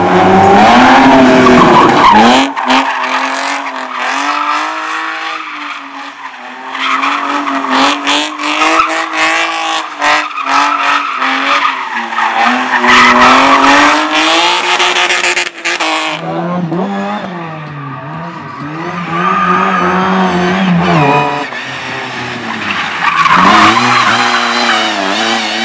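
Slalom race car driven hard: the engine revs up and drops again and again as it changes direction, with tyre squeal and skidding through much of the run. For a few seconds past the middle the engine runs quieter and lower before picking up again.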